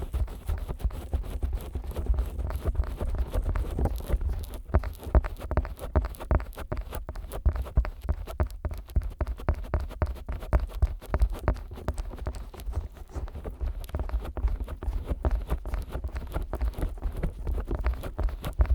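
Fingers working over the silicone ears of a 3Dio binaural microphone, slicked with petroleum jelly: a dense, irregular run of quick taps and rubs with heavy low thumps.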